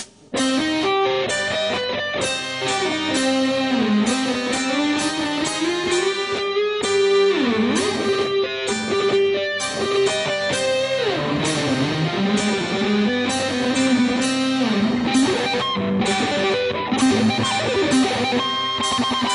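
Background music: an electric guitar plays a melody full of bent and sliding notes. The music drops out briefly at the very start, then comes back in.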